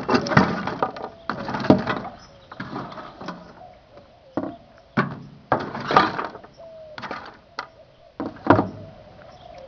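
A series of sharp knocks and bangs at irregular intervals, over a faint steady tone.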